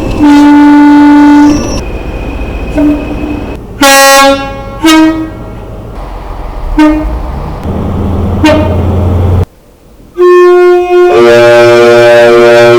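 Diesel train air horns sounded in a string of blasts: a long single-note blast, several short toots, and a final long blast where a second, higher note joins partway through for a two-tone sounding. A low train rumble runs between some of the blasts.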